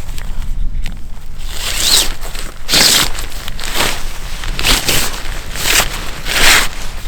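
Footsteps crunching through snow, about one step a second.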